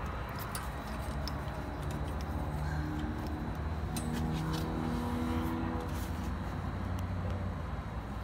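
Steady low machine hum with a few steady tones that come and go, and light clicks of wires being handled.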